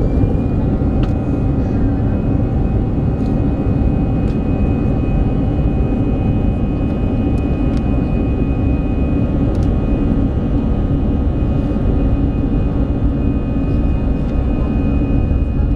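Airbus A320's CFM56 turbofan engines heard from inside the cabin while the airliner taxis: a steady low rumble under a high engine whine that rises in pitch at the very start and then holds steady.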